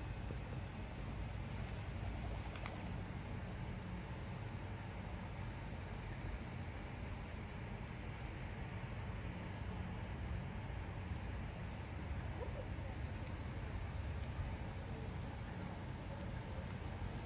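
Insects calling in a steady high-pitched drone, with faint regular pulses alongside it, over a low background rumble.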